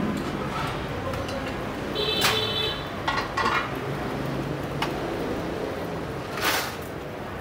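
Busy street traffic noise with a short, high horn beep about two seconds in, typical of a scooter horn. A few sharp clicks of metal tongs against the stall's steel trays come later.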